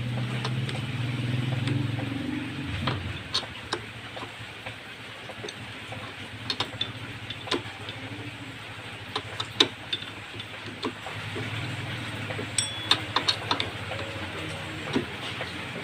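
Scattered metallic clicks and taps of hand tools on motorcycle engine parts during reassembly, over a low hum that swells in the first few seconds and again near the end.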